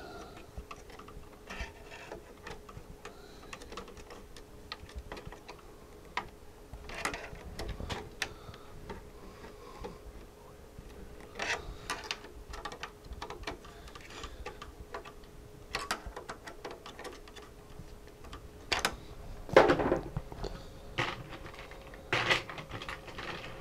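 Scattered small metallic clicks and taps of a quarter-inch nut driver tightening nuts on threaded studs, with a few louder knocks in the second half as tools and parts are handled. A faint steady hum runs underneath.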